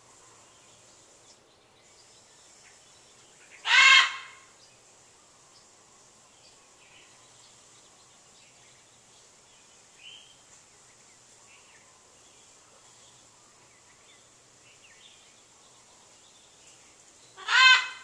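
Pet macaw giving two loud, harsh "kwaak" squawks, one about four seconds in and another near the end, each about half a second long. Faint small-bird chirps are heard between them.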